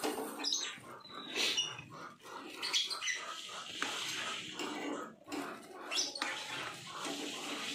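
Thin plastic food bags crinkling and rustling as hands open and handle them, in short, irregular rustles.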